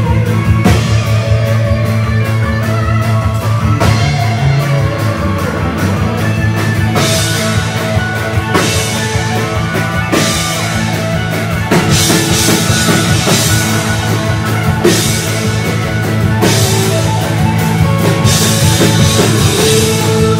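Live rock band playing electric guitars, bass guitar and drum kit, loud and steady, with the cymbals coming in heavier about seven seconds in.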